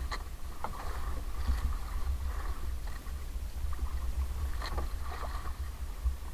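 Steady low rumble on a small outrigger fishing boat, with splashing and a few sharp knocks as a squid is gaffed against the hull. The loudest knock comes about four and a half seconds in.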